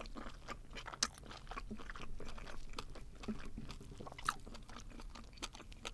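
Close-miked chewing of spicy stir-fried webfoot octopus: an irregular run of sharp, crunchy clicks.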